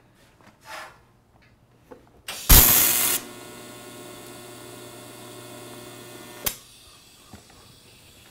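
TIG (gas tungsten arc) welder striking an arc to tack the corner of thin square steel tubing, set at about 90 amps. It starts about two and a half seconds in with a loud burst, then buzzes steadily for about three seconds and cuts off with a click.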